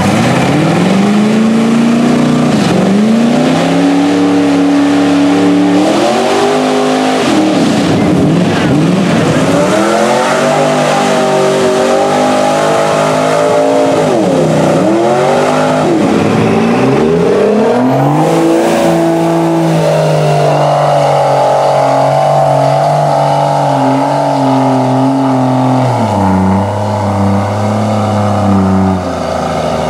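Lifted mud-bog trucks' engines revving hard as they churn through deep mud. The pitch climbs and drops again and again, is held high for several seconds in the second half, and falls lower near the end.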